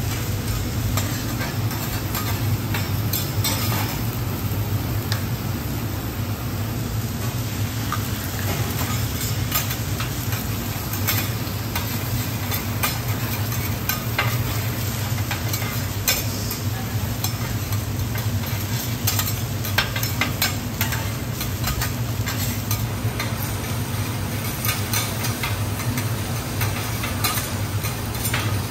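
Butter, chopped garlic and eggs sizzling on a flat steel teppanyaki griddle, with two metal spatulas repeatedly scraping and clacking against the plate as the cook chops and turns the food. A steady low hum runs underneath.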